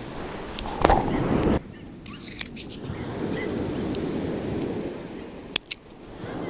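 Waves washing on a shingle beach with wind. About a second in there is a loud rush of noise that cuts off suddenly. Near the end come two sharp snips close together: small scissors cutting fishing line.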